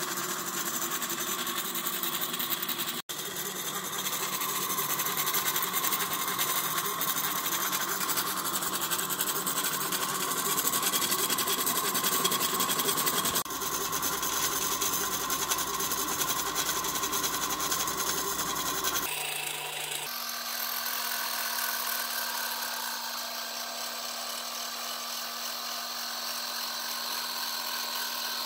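Homebuilt CNC laser engraver running, its stepper motors whining and buzzing as the diode laser head rasters a grayscale test strip, over the steady hum of the laser module's cooling fan. The sound changes abruptly twice. After about 20 seconds it is quieter, with a steady low hum.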